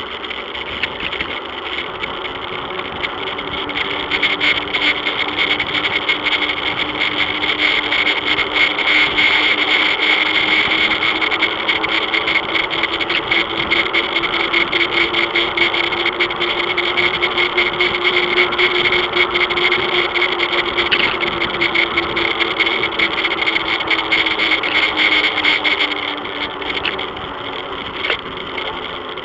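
Bicycle rolling along an asphalt road, heard through a bike-mounted action camera: a steady hum that rises slowly in pitch and falls again, over constant fine rattling.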